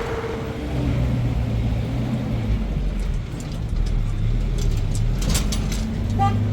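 A motor vehicle's engine running steadily with a low hum, with a few sharp clicks or rattles in the second half.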